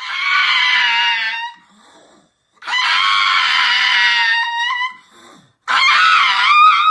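Three long, high-pitched screams, each lasting about one and a half to two seconds with short gaps between; each drops in pitch at its end, and the last one wavers up and down.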